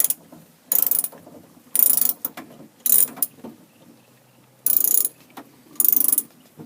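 Ratchet wrench clicking in five short bursts, each a back-swing between turns while loosening a nut inside a car door, with a longer pause midway.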